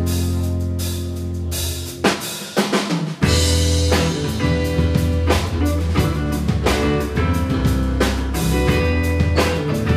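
Live rock band playing: a held bass-and-guitar chord, then a short drum break about two seconds in with the bass dropped out. After that the full band comes back in on a steady beat with drum kit, bass and guitar.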